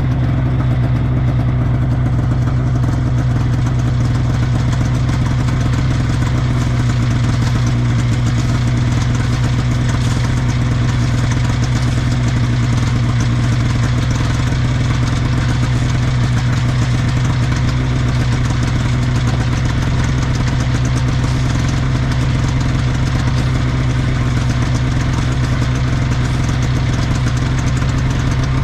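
1979 Scorpion Whip TKX 440 snowmobile's Cuyuna 440 two-stroke engine idling steadily, heard up close from the machine itself.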